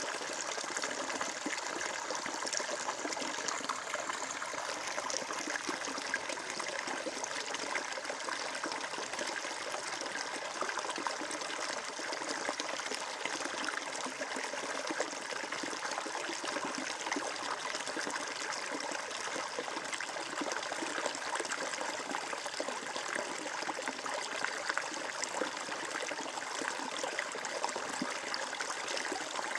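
Water flowing and trickling steadily, as in a small stream or brook, with a continuous splashing rush and fine bubbling detail.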